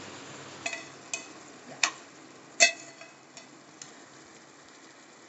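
A steel spoon scrapes and knocks against a small stainless-steel tempering pan as fried green chillies and curry leaves are emptied into the kadai. There are a few sharp metallic clinks over the first three seconds, the loudest about two and a half seconds in. Under them the tomato masala gives a faint sizzle.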